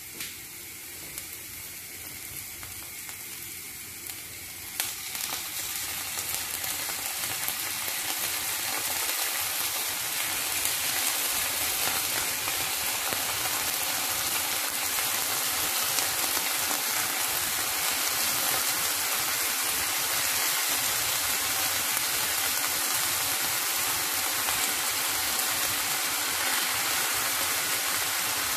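Chopped onion and garlic sizzling in oil in a nonstick frying pan. About five seconds in, cubes of marinated chicken breast go in, and the sizzle grows louder and then holds steady.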